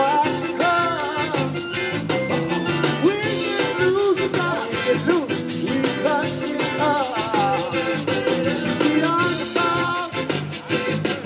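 Live zydeco band playing: accordion over electric guitars, keyboard, bass and drum kit. The beat is steady and quick.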